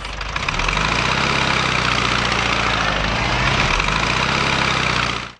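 Vehicle engine sound effect for a cartoon ambulance driving out: a steady engine hum with a loud hiss above it, building up over the first second and cutting off suddenly at the end.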